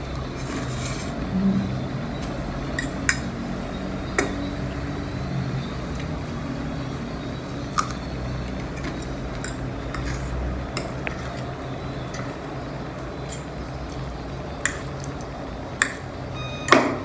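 Fork and spoon clinking and scraping on a ceramic plate of noodles during eating: scattered sharp clinks, the loudest a little before the end, over a steady low hum.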